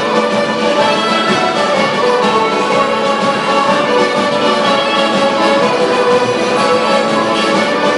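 Irish traditional music played live by a group of musicians on fiddles and other instruments: a steady, unbroken tune.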